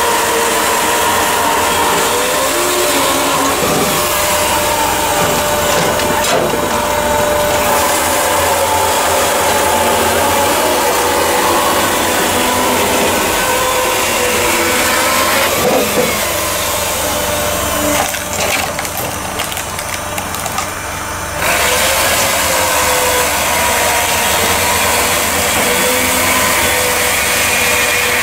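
Firewood processing machine running steadily while splitting logs, with wood cracking and splintering and a few sharp knocks. The noise drops for a few seconds about two-thirds of the way through, then picks up again.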